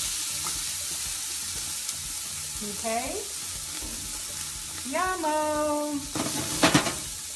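Chopped onion sizzling steadily in hot vegetable oil in a large stainless steel stockpot, just after being tipped in to sauté. About six seconds in there is a brief, louder crackling burst.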